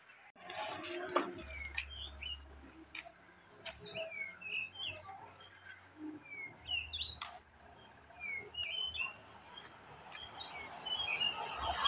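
Small birds chirping: many short, quick chirps scattered throughout, with a few sharp clicks among them.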